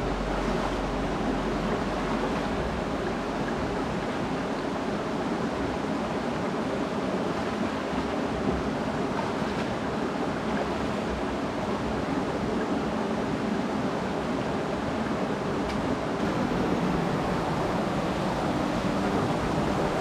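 River water rushing steadily over rocks and small rapids, an even, unbroken rush. The river is running high after a day of rain.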